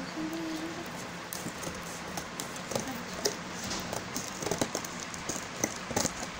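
Scissors snipping and sliding through packing tape on a cardboard parcel box, with irregular clicks and scrapes as the cardboard is handled.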